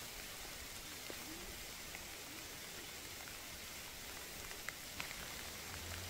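Rain falling on a pond, a soft, even hiss with scattered ticks of single drops.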